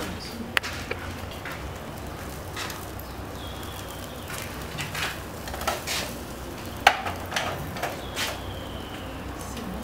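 Fish grilling over charcoal, sizzling steadily with scattered sharp crackles and clicks.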